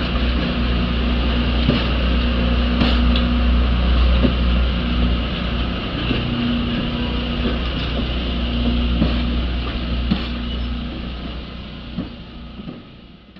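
Railway passenger coaches rolling past at low speed: a steady rumble of steel wheels on rail, with sharp clicks every second or so as the wheels cross rail joints. The sound fades over the last couple of seconds.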